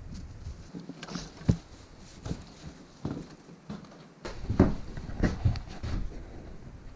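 Scattered knocks and thuds with a sharp one about a second and a half in, then a louder cluster of footsteps and knocks near the end as someone walks through a door onto a wooden floor.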